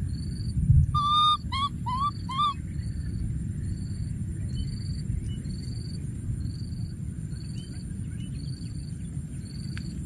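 Outdoor ambience: a steady low noise, with a short high chirp repeating evenly about every 0.7 seconds. About a second in, four short high calls sound in quick succession, the last three rising in pitch.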